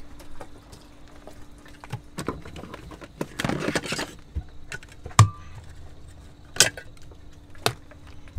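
Small gear being handled and set down on a shelf: a short rustle about halfway through and several sharp clicks and taps, the loudest near the end, over a faint steady hum.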